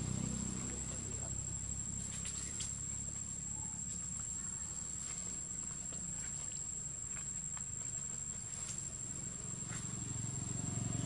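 Outdoor ambience: a steady high-pitched insect drone over a low rumble, with a few scattered faint clicks.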